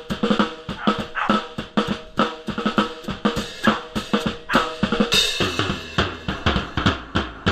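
A drum kit playing a fast beat of kick, snare and rimshot strokes. About five seconds in a crash cymbal hits and the low end gets heavier.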